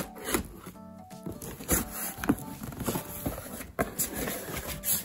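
Clear packing tape being ripped off a cardboard box, with the cardboard scraping and rustling as the lid is pulled open, heard as a run of uneven rips and scrapes over background music.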